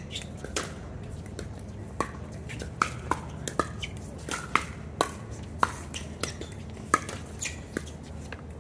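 Pickleball paddles striking a plastic pickleball in a rally: a dozen or more sharp, hollow pops at an irregular pace.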